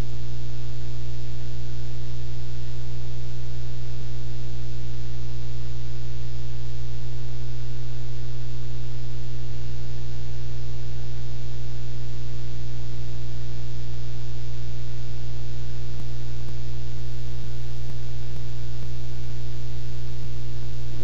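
Loud, steady electrical mains hum with a buzzy stack of overtones, unchanging in level, picked up in the microphone and audio line as interference.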